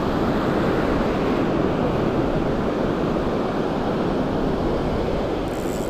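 Ocean surf washing and breaking steadily in the shallows, with wind on the microphone.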